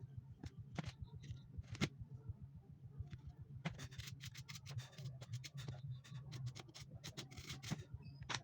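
Computer keyboard being cleaned with a pen and cloth: irregular clicks and scratching among the keys, over a steady low hum.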